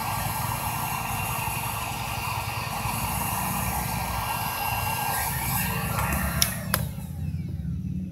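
Electric heat gun blowing hot air with a steady hiss and fan whine, heating the cut end of a stiff garden hose to soften it so the mender fitting will slide in. The hiss stops after two sharp clicks about six and a half seconds in, leaving a low rumble.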